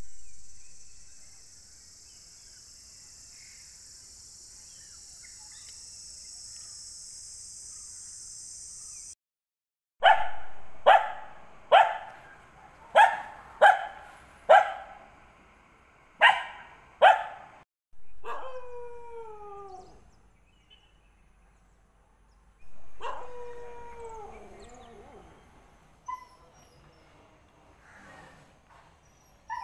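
A steady high hiss, then a dog barking sharply about eight times. After that come two long howls that fall in pitch, a few seconds apart.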